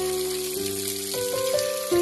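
Background music of held notes that change pitch about every half second, over a steady hiss.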